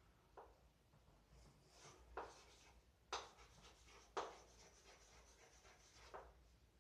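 Faint sounds of writing: about five short scratching strokes, with a pause between each.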